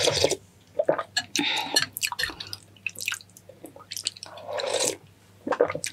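A few wet slurps of hot La Paz batchoy noodle soup, close to the microphone, with small clicks between them.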